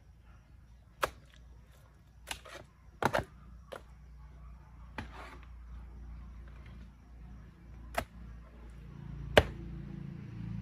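Hand hoe striking into clay soil among stones, about seven irregular blows, several with a sharp clink of metal on rock. The hardest blow comes near the end.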